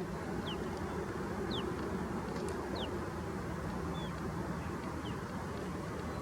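Steady low din of a cormorant colony calling in the background, with several short, high, falling whistled bird calls over it.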